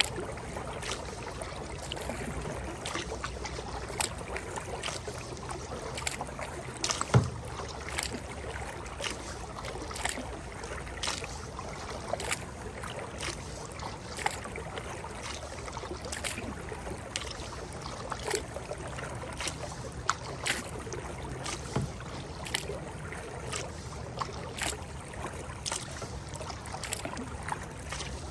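Kayak paddle strokes: the paddle blades dipping into the water in a steady rhythm, roughly one stroke a second, over a constant wash of water and wind. About seven seconds in there is one sharper, louder knock.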